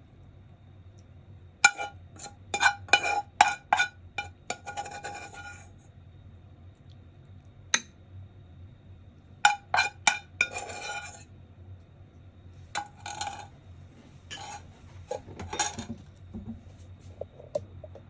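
Cutlery and dishes clinking against each other in irregular clusters of sharp, ringing knocks, with pauses between, as food is handled and served.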